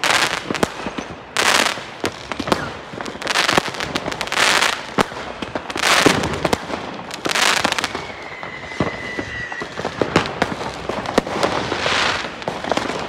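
Many aerial fireworks going off: repeated loud bursts about every second or two, with dense crackling between them and a brief high whistle about eight seconds in.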